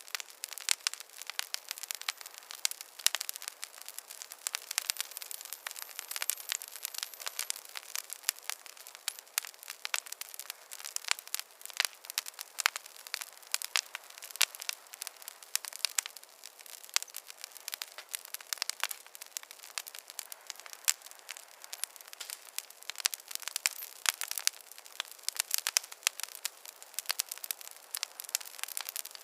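Wood fire crackling in a fireplace: a dense, irregular run of small pops and snaps, several a second, over a soft hiss.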